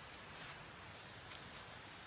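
Boots stepping on dry fallen leaves: a few soft crunches and rustles of leaf litter underfoot.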